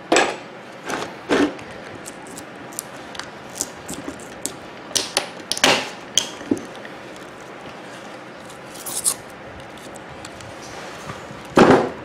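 Flathead screwdriver prying and scraping at the copper winding of a microwave oven transformer, metal against metal in its steel core. It makes scattered clicks and short scrapes, with a longer, louder scrape near the end.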